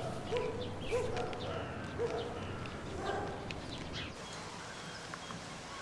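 A dog barking repeatedly, about once a second, with birds chirping. Both stop abruptly about four seconds in, leaving quieter outdoor background.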